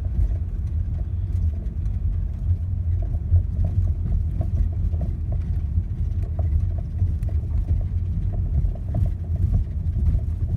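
Steady low road rumble inside a 2011 Chevy Malibu's cabin while it moves slowly over small bumps, with several light clunks from the front end: the clunk the owner believes comes from the steering column.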